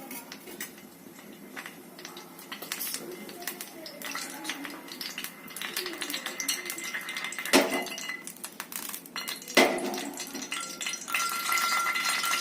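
Kitchen clatter of metal cookware and utensils: scattered clinks and taps, with two louder knocks in the second half.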